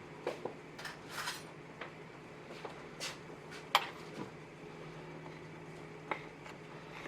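Scattered light clinks and knocks of a utensil against a mixing bowl as flour is added to cake batter, the sharpest click a little under four seconds in, over a faint steady hum.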